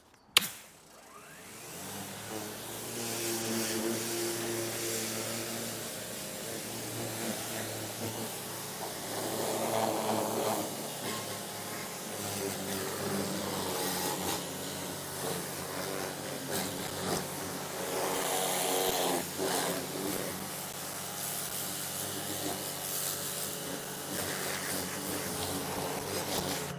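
Stihl REA 60 Plus battery pressure washer spraying: a click, then the pump motor spins up over about two seconds into a steady hum under the hiss of the water jet, rising and falling as the spray moves over the surface, and cutting off suddenly at the end.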